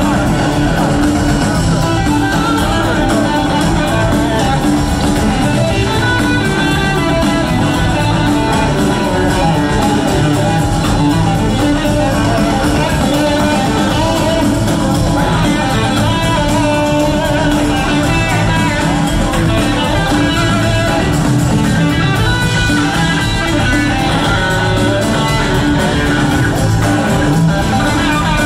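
Live rock band playing an instrumental jam, with electric guitar to the fore, heard from far back in a theatre audience.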